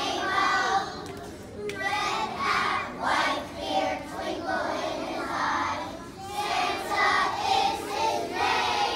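A choir of kindergarten children singing together in phrases.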